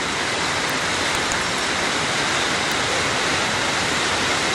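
Heavy rain mixed with hail pouring down, a steady dense hiss.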